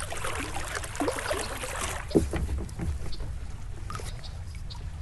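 Kayak paddle dipping and pulling through calm water, with drips and small splashes off the blades and one sharper knock about two seconds in.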